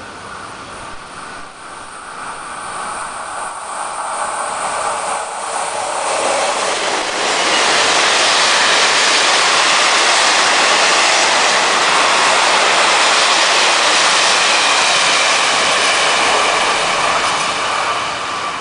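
A Chu-Kuang express hauled by an E200-series electric locomotive running through a station: wheel and rail noise grows as the train approaches, stays loud for about ten seconds while the coaches pass close by, then starts to fade as it moves away.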